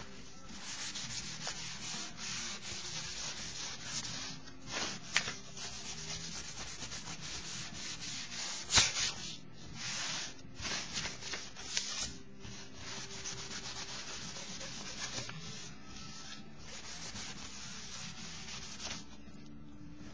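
A wad of crumpled paper rubbed and scraped back and forth across a painted paper sheet, smearing wet black acrylic ink, in repeated rasping strokes with short pauses. A single sharp knock about nine seconds in is the loudest sound, and the rubbing stops about a second before the end.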